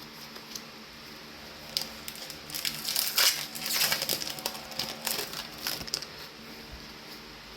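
Hands handling Magic: The Gathering cards and pack wrapper: an irregular run of rustles and small clicks, busiest from about two to six seconds in.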